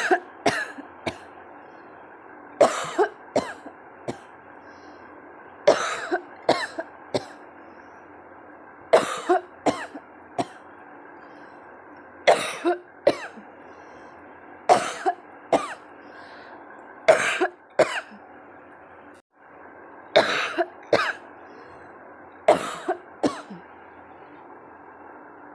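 A woman coughing on purpose in short fits of two to four coughs, a new fit about every three seconds, over a steady background hum.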